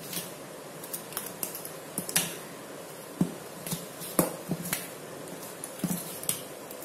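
Fermented ragi dosa batter being mixed by hand in a stainless steel bowl: irregular light clicks and knocks of the hand and bowl against the steel.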